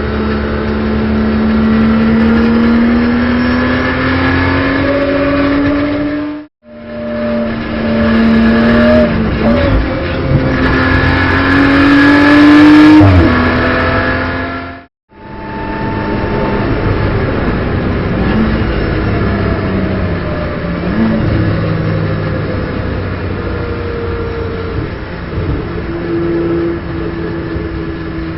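BMW M240i Racing Cup car's turbocharged straight-six engine heard from the cockpit, pulling hard with its note rising, dropping at gear changes and rising again, then running lower with a slowly falling pitch. The sound cuts out completely twice for a moment, about six seconds in and halfway through.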